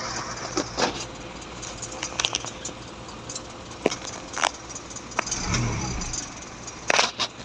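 Isuzu 4HL1 diesel engine running low and steady, with scattered sharp clicks and taps. A brief low rumble swells up about five and a half seconds in.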